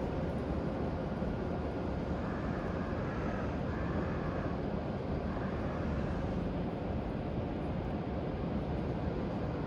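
Steady low hum and hiss of a shinkansen station platform, with no train moving.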